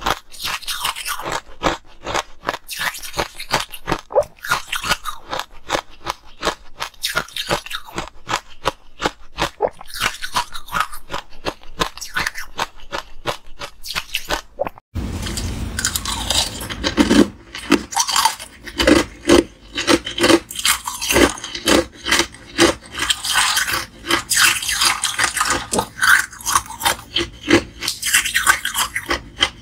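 Ice being crunched and chewed in the mouth: a dense run of rapid crunches from crushed ice, then, after a sudden cut about halfway through, louder and more widely spaced crunches of thick ring-shaped ice pieces.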